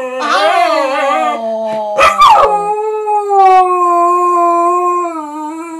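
Pet dog howling: wavering howls, a short sharp yelp about two seconds in, then one long, steady howl that slowly drops in pitch and fades near the end.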